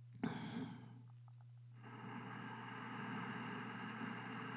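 A woman's breath drawn in sharply between spoken phrases, then a faint steady hiss over a low electrical hum.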